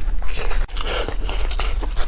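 A person chewing food close to the microphone: a run of short, wet chewing sounds, one after another.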